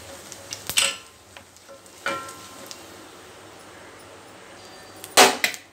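Ghee frying with cumin and black pepper in a steel kadai, a steady sizzle, with a few sharp knocks and clinks of a utensil against the pan. The loudest knock comes about five seconds in, and one about two seconds in rings briefly.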